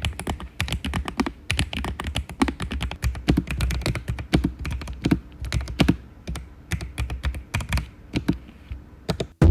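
Typing on a Lofree Flow low-profile mechanical keyboard with Kailh full-POM switches. The keystrokes click in a fast, irregular run, with some louder, deeper strokes mixed in. A brief loud burst comes right at the very end.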